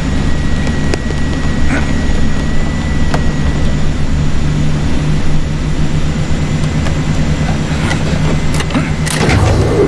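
Steady low drone of a jet airliner in flight, heard from inside its cargo hold, with a few light clicks. A short rush of noise comes near the end.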